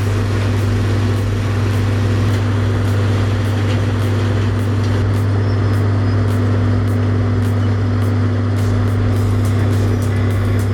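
A heavy industrial grinding or shredding machine runs steadily with a loud, constant low hum, under background music with a regular beat.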